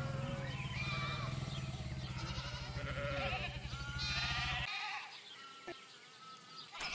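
Several sheep bleating over and over, over the steady low pulsing of a motorcycle engine running nearby. The engine cuts off abruptly about two-thirds of the way through, leaving only fainter bleats.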